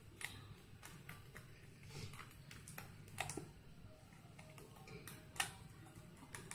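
Pieces being pressed and popped out of a 3D puzzle sheet by hand: scattered light clicks and snaps, the sharpest one about five seconds in.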